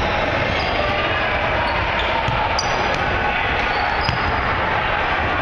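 Basketball bouncing on a hardwood gym floor during play, a few sharp knocks over a steady hall noise, with some short high squeaks.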